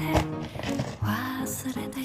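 Background music with a steady melody of held notes.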